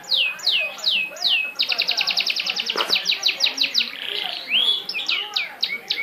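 Caged canary singing: a string of downward-sliding whistled notes, then a fast trill of about a dozen notes a second, a brief buzzy note, and more sliding whistles near the end.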